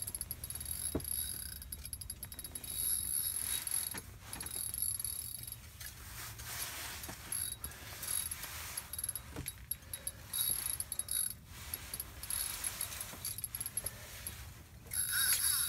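Ice-fishing reel cranked in stretches while a whitefish is brought up through the ice hole, a high mechanical whir with clicks that starts and stops repeatedly. A louder rustling burst comes near the end.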